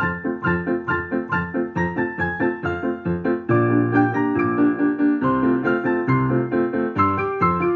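Digital piano playing a four-hands duet: the Primo part is played live over a pre-recorded Secondo. A steady stream of quick notes runs throughout, and about three and a half seconds in it grows louder with fuller bass chords.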